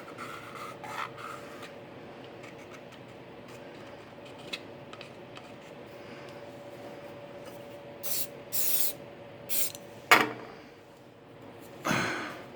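Rubbing and scraping on wood over a faint steady hum, with a few short, louder scrapes later on and a sharp knock about ten seconds in.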